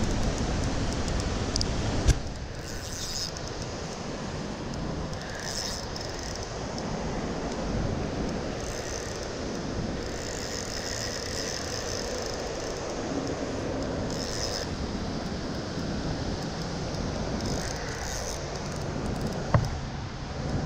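Steady rush of creek water running over rapids, with a sharp knock about two seconds in and another near the end.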